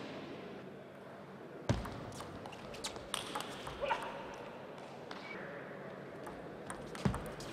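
Table tennis rally: the ball's sharp clicks off the bats and the table, a loud first hit followed by several lighter ones over about two seconds, against the steady murmur of a large hall. A single sharp knock comes near the end.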